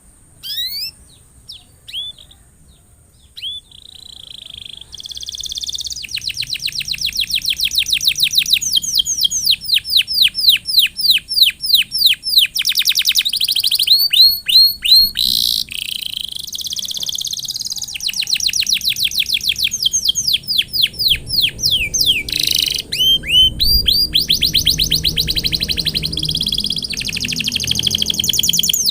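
Domestic canary singing. A few separate chirps give way, about six seconds in, to long, fast trills of repeated downward-sweeping notes, with the trill changing every few seconds.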